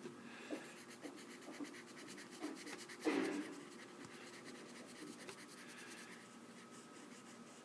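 A drawing tool scratching and stroking on paper. There is a brief louder sound about three seconds in.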